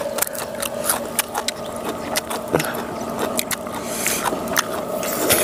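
Crisp jar-roasted rat being pulled apart and eaten, a fast irregular run of crunches, crackles and sharp clicks.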